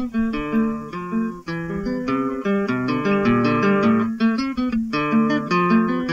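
Acoustic guitar music: a quick run of plucked notes played over a lower bass line.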